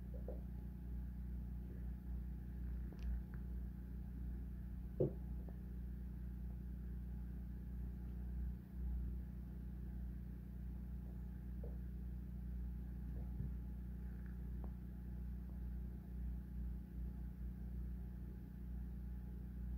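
Two Sphynx cats play-fighting on a rug: a few faint soft knocks and scuffles, the clearest about five seconds in, over a steady low hum.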